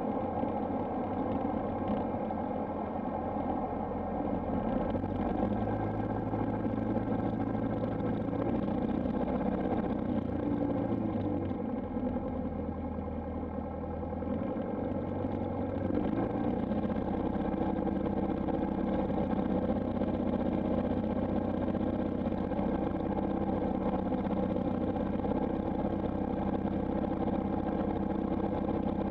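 Piper PA-28-161's four-cylinder Lycoming O-320 engine running at low power while the aircraft taxis onto the runway, heard from inside the cabin. The engine note shifts a little in the middle as power is adjusted, then holds steady.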